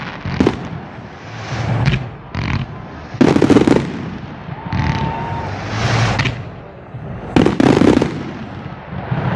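Fireworks display: aerial shells bursting in a series of loud bangs a second or two apart, the loudest about three seconds in and again near the end.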